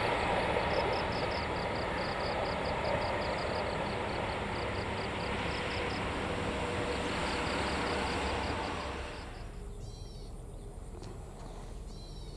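A passing train's wheel-on-rail noise, steady with a fast regular clicking, then fading away about three quarters of the way through. A bird chirps twice near the end.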